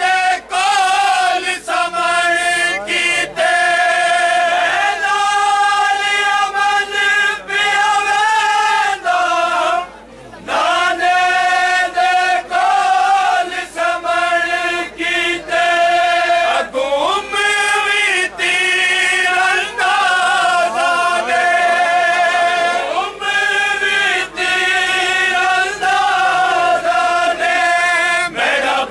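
Group of male mourners chanting a noha, a Shia lament, in unison without instruments. A loud lead voice carries long held lines, and the crowd joins in. The phrases break briefly between lines.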